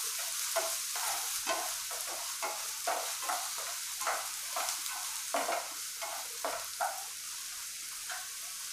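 Chopped onions sizzling in hot oil in a frying pan, stirred with a wooden spatula in scraping strokes about twice a second; the onions are being sautéed until lightly browned. The stirring strokes thin out after about seven seconds while the sizzle goes on.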